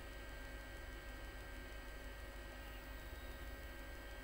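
Faint, steady electrical hum with a few thin steady whine tones above it, unchanging throughout; the soldering itself makes no audible sound.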